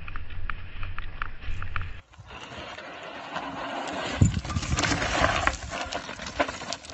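A mountain bike riding down a rocky dirt trail: first a steady low rumble with light clicks, then, after a break about two seconds in, a denser clatter of tyres on loose stones and the bike's chain and frame rattling, with sharp knocks, loudest as it passes about four to five seconds in.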